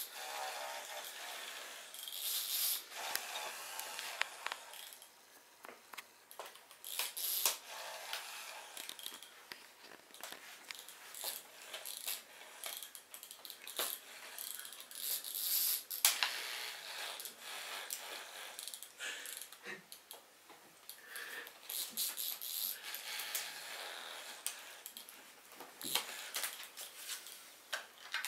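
Pull-string toy mouse's mechanism whirring and rattling in repeated bursts of a second or two as its string is pulled and it runs, with scattered sharp clicks between.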